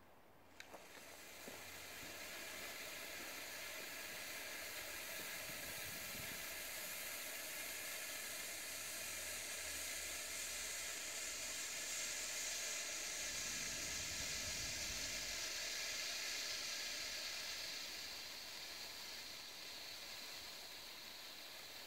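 Red Bengal flare (Lesli Bengalo Rot) burning with a steady hiss, after a couple of ignition clicks about half a second and a second and a half in. The hiss swells a little through the middle and eases slightly near the end.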